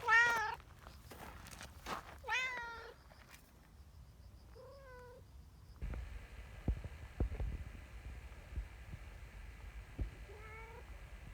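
Cat meowing four times: a loud meow right at the start, another about two seconds in, a fainter one near five seconds, and a last one near the end. Soft low thumps and rustles of handling fall between the later meows.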